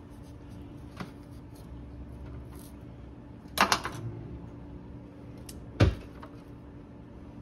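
Knocks and clicks of things being handled during food preparation: a light click about a second in, a short clatter around three and a half seconds, and the loudest, a heavy thump, near six seconds, over a low steady hum.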